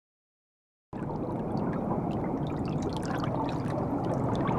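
Silence for about the first second, then a steady rush of moving water with faint bubbling crackles, growing slightly louder.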